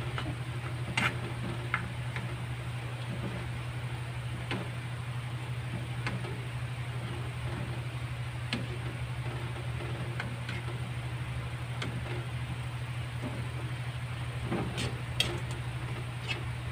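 A metal ladle stirring curry in a wok, its scrapes and taps against the pan sounding as scattered short clicks, a few together near the end, over a steady low hum.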